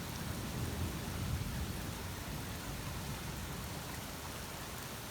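Steady heavy rain with a low rumble of thunder underneath, easing off slightly toward the end.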